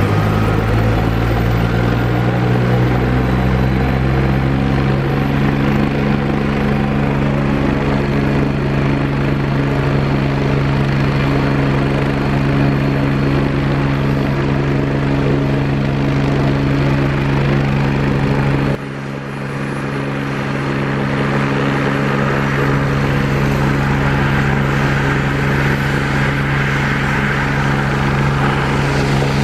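Agusta AW109 twin-turbine helicopter running on the ground with its rotors turning: a steady drone with a thin, high turbine whine. About two-thirds of the way through, the sound drops abruptly and then slowly builds back up.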